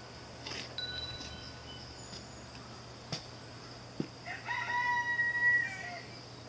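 A rooster crowing once, about four seconds in: a few broken notes that run into one held call lasting well over a second.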